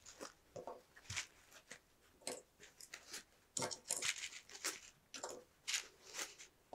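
Handling of tiny plastic figure accessories and a black foam packaging insert: a string of quiet, short clicks and rustles as small parts are set down on a table and the foam tray is lifted.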